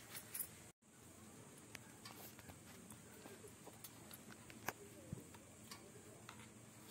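Near silence with faint scattered clicks and light handling sounds as steamed leaf parcels are picked open on a steel plate; the sound drops out completely for a moment about a second in.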